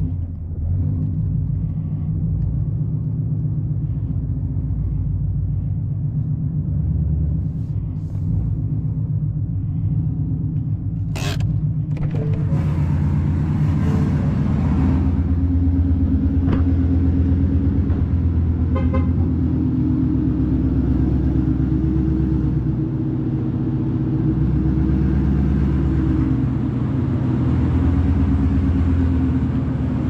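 2015 Ford Mustang GT's 5.0-litre V8 idling with a steady low rumble. A brief sharp knock comes about eleven seconds in.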